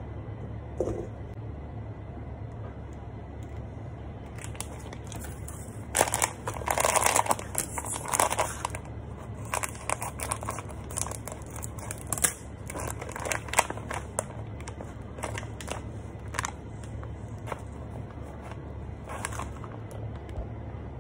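Plastic packet crinkling and crackling in irregular bursts as it is handled and opened, loudest about six to eight seconds in, over a steady low hum.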